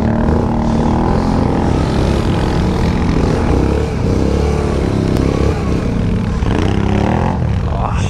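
ATV engine running under load on a steep climb in low-range four-wheel drive, its pitch rising and falling with the throttle and climbing again near the end.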